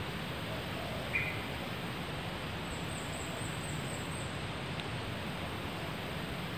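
Forest ambience: a steady hiss, a short bird chirp about a second in, and a quick run of faint, very high chirps around the middle.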